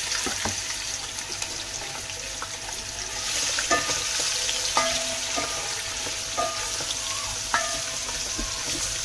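Marinated chicken pieces sizzling in hot oil in a nonstick pot. The sizzle grows stronger about three seconds in as a spatula starts stirring, with a few sharp knocks of the spatula against the pot.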